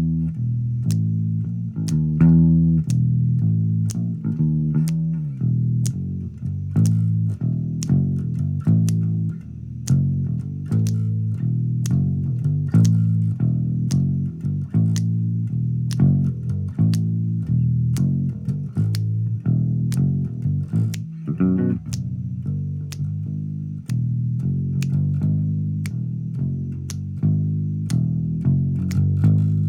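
Instrumental music: a bass guitar riff with a steady beat of sharp clicks over it.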